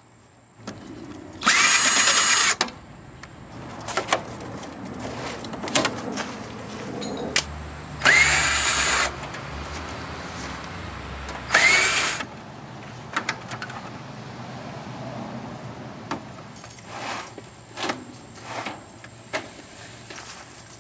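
Power drill run in three short bursts, each rising in pitch as it spins up, taking apart a window air conditioner. Clicks and knocks of handling come between the bursts.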